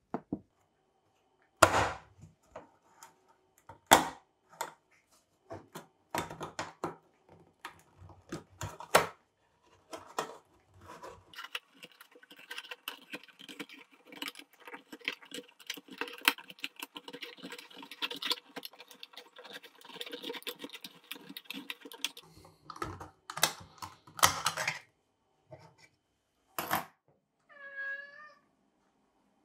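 Restored vintage Bon Clou can opener cutting around a tin can lid: quick, steady clicking of its toothed wheel as the key is turned, with a few louder clicks and knocks as it is handled and fitted on and taken off. Near the end a cat meows once.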